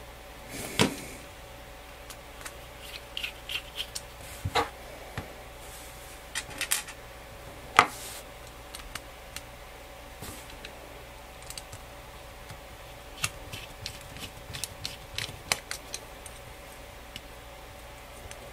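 Scattered small clicks and taps of a tiny camera circuit board, a 3D-printed plastic mount and small screws being handled and fitted together, with a small screwdriver working a screw. The sharpest click comes about eight seconds in.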